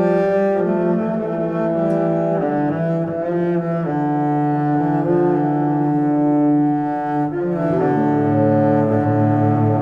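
Background music of slow, long held notes sounding together as chords, changing every second or two.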